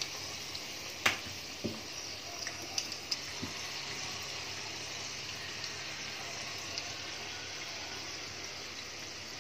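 A chicken keema pastry ring deep-frying in hot oil in a small karahi: a steady sizzle with a few sharp clicks, the loudest about a second in.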